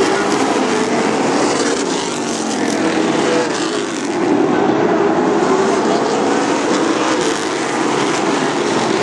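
Late model stock car engines running hard as two cars race side by side past the stands, a loud steady engine note that dips briefly about four seconds in and then climbs again.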